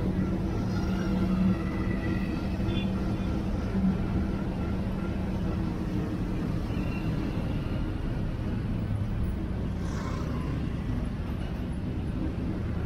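City traffic heard from a moving vehicle: a steady engine hum under road noise, with cars and motorbikes running nearby.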